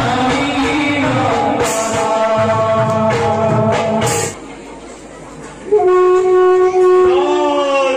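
Bhaona accompaniment: singing over steady held harmonium tones, with a few sharp strikes, breaks off about four seconds in. After a brief lull, a man's voice begins a loud, drawn-out line, holding a long note and then sliding in pitch, in the chanted style of bhaona dialogue.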